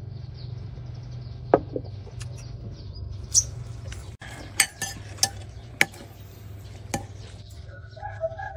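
Chopsticks and a ladle clinking against ceramic bowls and a clay pot during a meal: a scattering of sharp clicks, roughly one a second, over a steady low hum.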